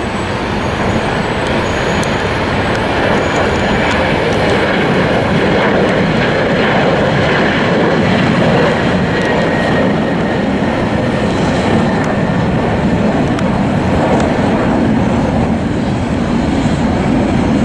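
Jet airliner engines at takeoff power, a loud steady rushing noise that holds level throughout, with a faint high whine coming through in the middle.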